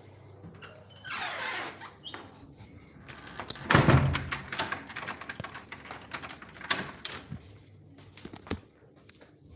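A rustle, then a thump about four seconds in, followed by a few seconds of keys jangling and clicking amid handling knocks.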